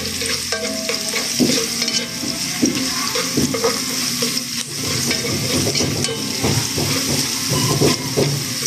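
Minced garlic sizzling as it fries in hot oil in a stone-coated pot, with a cooking spoon stirring and scraping repeatedly across the bottom of the pot.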